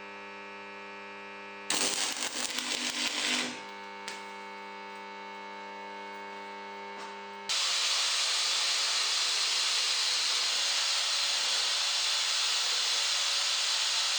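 Woodworking machinery: a low, steady hum, broken about two seconds in by a short burst of rattling. About seven and a half seconds in, a loud, steady rush of machine noise starts up and holds.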